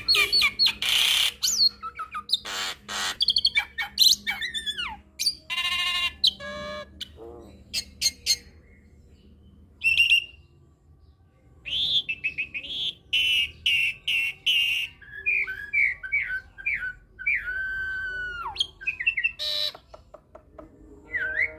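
Caged hybrid jalak (jalak nias × jalak suren starling) singing a fast, varied song of loud whistles, harsh squawks, trills and gliding notes in short bursts, with brief pauses near the middle.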